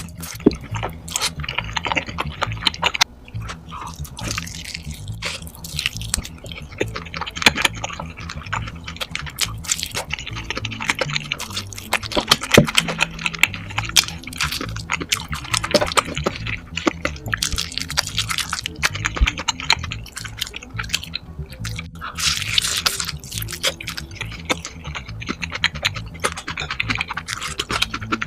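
Sped-up mukbang eating sounds, a dense run of quick chewing and mouth clicks, over background music with a repeating low bass pattern.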